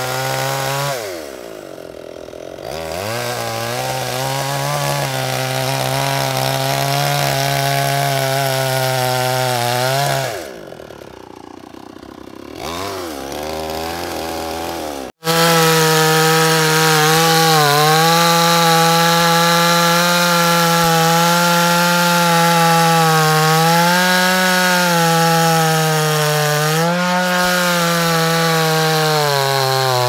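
Two-stroke gasoline chainsaw at full throttle, cutting through a thick log. Twice in the first half the engine note drops and climbs back as the throttle is eased and opened again. After a brief break about halfway it runs steadily and loudly through the cut.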